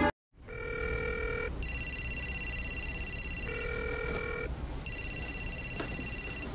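Mobile phone ringing tone: two electronic tone patterns alternating, a lower set of tones for about a second, then a higher pair for nearly two seconds, repeated twice.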